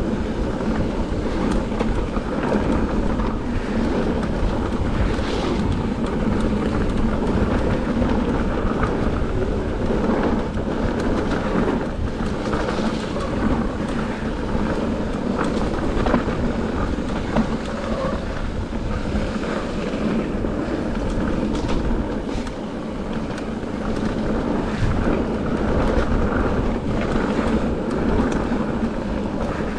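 Mountain bike tyres rolling fast over a gravel forest trail, with wind buffeting the microphone and frequent knocks and rattles from the bike over bumps.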